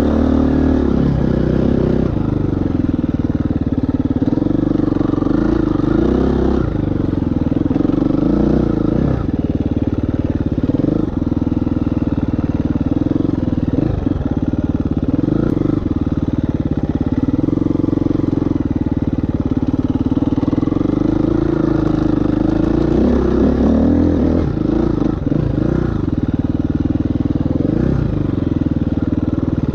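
A KTM 350 EXC-F's single-cylinder four-stroke engine being ridden hard. Its pitch climbs and drops again and again as the throttle is opened and closed.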